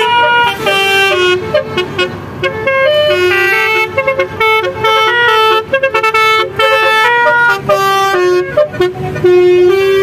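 Telolet musical car horn playing a quick tune of short, stepped notes one after another, loud and nearly continuous, with a few brief breaks between phrases.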